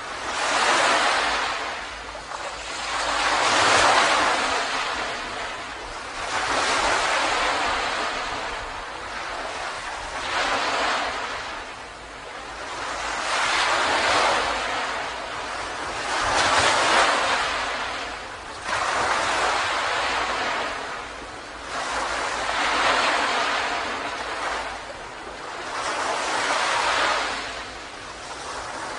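Ocean surf breaking and washing up a beach in repeated swelling surges, a new wave about every three seconds.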